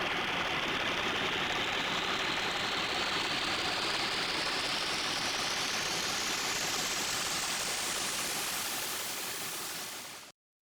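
A synthesized rushing noise sweep, steady and dark at first, brightening slowly as its filter opens. It fades near the end and then cuts off abruptly.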